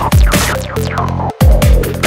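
Electronic dance music with a heavy beat and deep falling bass drops.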